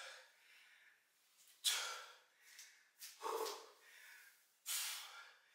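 A man's hard breathing under exertion while lifting a kettlebell: three sharp, hissing exhales about a second and a half apart, with a few fainter breaths between.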